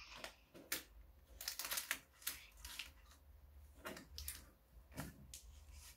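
Faint, scattered soft clicks and rustles, several a second, like small handling noises of paper or objects near a microphone.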